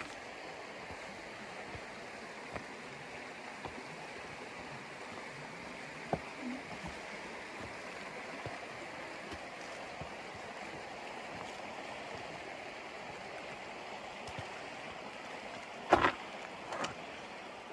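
Steady rushing of running water from a creek out of sight. Two louder footstep scuffs on the rocky trail near the end.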